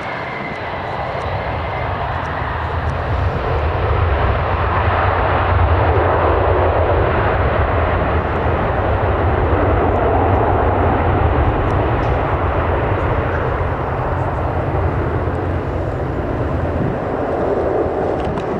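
Twin jet engines of an easyJet Airbus A320-family airliner at takeoff power during its takeoff roll: a loud, steady jet rumble that builds over the first few seconds and then holds.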